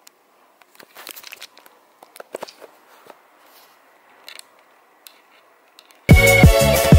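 Faint scattered crackles and crunches, then loud upbeat music with a strong beat starts suddenly about six seconds in.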